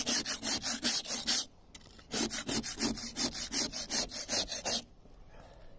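Hand scraper scraping the wet crust and old blacking off a narrowboat's steel hull in quick strokes, about five a second. The scraping pauses briefly about one and a half seconds in, then stops about a second before the end.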